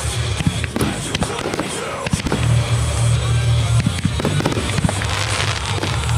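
Aerial firework shells bursting, with many sharp bangs and crackles, over music with sustained low bass notes.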